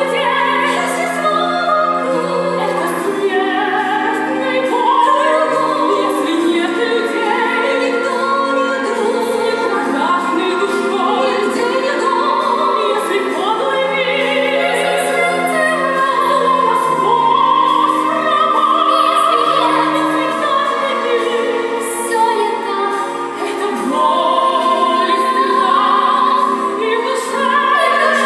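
Women singing a song with vibrato over instrumental accompaniment.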